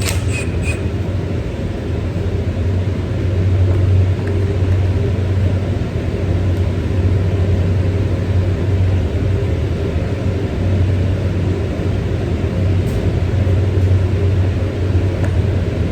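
A machine running with a steady low hum, with a few short clicks right at the start.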